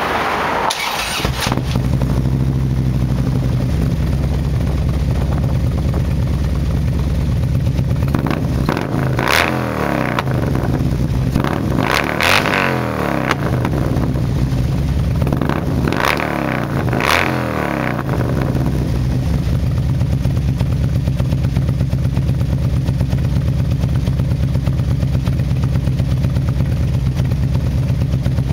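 2009 Harley-Davidson CVO Road Glide's Screaming Eagle Twin Cam 110 V-twin running through a CFR exhaust with a Fullsac X-pipe: it starts about a second in and settles into a steady idle. Through the middle the throttle is blipped in several short revs, each rising and falling back to idle.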